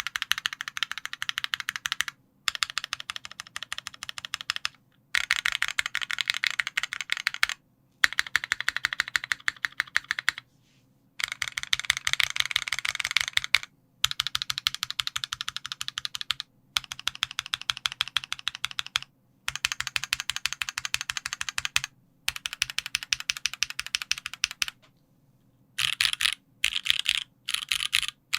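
Typing on a Sangeo 60 mechanical keyboard with lubed JWK Snow White linear switches on an aluminium plate and GMK Noel keycaps: rapid keystrokes in bursts of two to three seconds with short pauses between them, turning to shorter bursts near the end.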